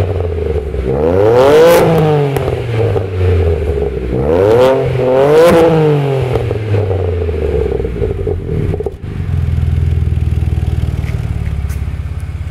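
BMW E92 335i's turbocharged straight-six, running through an Eisenmann Race exhaust, is blipped twice, each rev rising and falling back. Its note then settles to a steady idle for the last few seconds.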